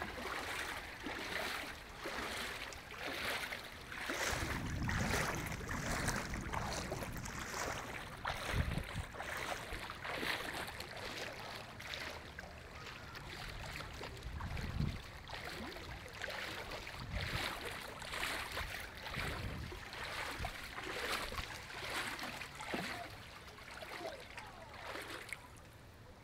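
Floodwater sloshing and splashing in short, repeated surges, with a few low rumbles along the way.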